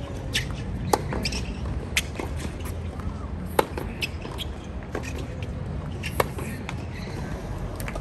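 Tennis rally on a hard court: sharp pops of rackets striking the ball, with lighter ball bounces in between, about one to two seconds apart.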